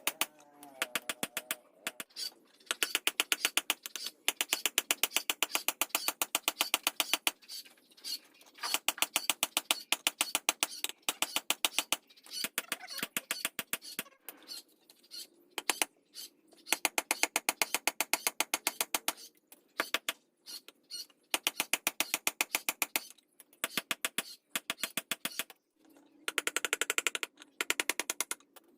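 Rapid, evenly spaced hammer strikes on metal in runs of a second or two, broken by short pauses.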